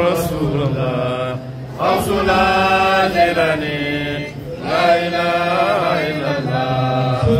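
Islamic devotional chanting: a man's voice sings long, wavering held notes in phrases, with short breaks between them about a second and a half and four and a half seconds in.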